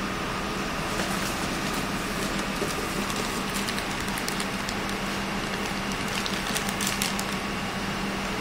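Steady room tone: a constant low hum with hiss, with scattered faint clicks.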